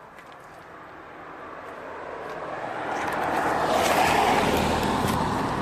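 Road vehicle approaching, its engine and tyre noise growing steadily louder over about four seconds, then staying loud.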